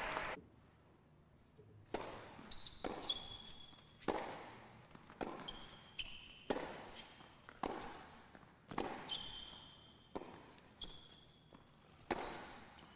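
Tennis ball struck back and forth by rackets in a rally on an indoor hard court: sharp hits about a second apart, each ringing on in the hall, with shoes squeaking on the court between them. The first second or two is quiet.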